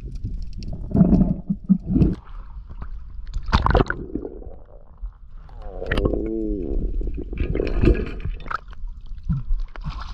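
Muffled underwater sound around a freediving spearfisher: gurgling and bubbling with several dull knocks, one louder about a third of the way in. Near the end the diver breaks the surface and the water splashes.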